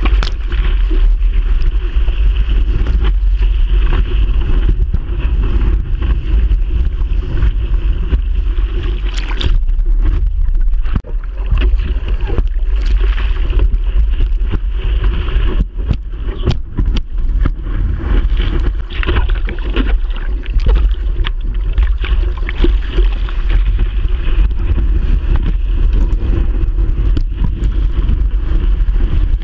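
Sea water rushing and splashing over a surfboard-mounted camera while the surfer paddles and rides through whitewater. A heavy low rumble of water and wind buffets the microphone throughout, with frequent crackling splashes.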